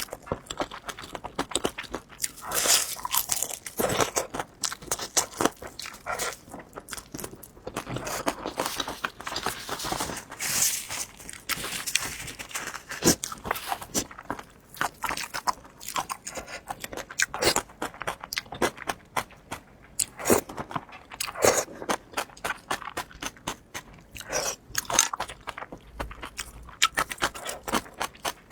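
Close-miked eating: a person biting into crunchy food and chewing, with many irregular sharp crunches throughout.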